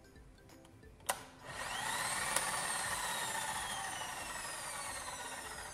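Electric jackhammer's motor switched on after a carbon-brush terminal repair: a click, then the motor whines up to speed and slowly winds down, with a second click about a second after start-up. The motor running shows the repair has restored power.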